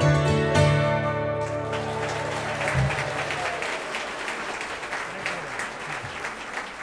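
A hammered dulcimer and string band (hammered dulcimers, upright bass and fiddle) lets the final chord of a tune ring out, and about two seconds in the audience breaks into applause that gradually fades.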